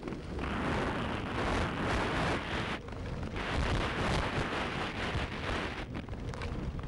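Wind buffeting the microphone of a rig-mounted camera over the rumble and rattle of a dog rig's wheels rolling fast over the road surface, as a steady loud rush with a brief lull about three seconds in.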